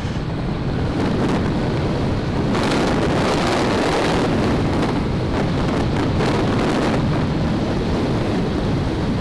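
Wind rushing over a helmet-mounted camera microphone while riding a Royal Enfield single-cylinder motorcycle, the engine running under the wind noise. The wind gets louder about two and a half seconds in.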